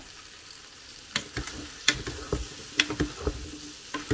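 Chicken and diced potato sizzling in an electric pressure cooker's pot while a silicone spatula stirs them, knocking and scraping against the pot in a run of sharp, ringing taps from about a second in.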